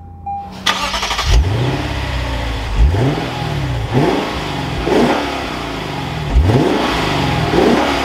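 2024 Lexus IS 500 F Sport's 5.0-litre naturally aspirated V8 cranking over briefly and catching with a flare, then blipped about five times, each rev rising and falling back to idle, heard at the exhaust tips.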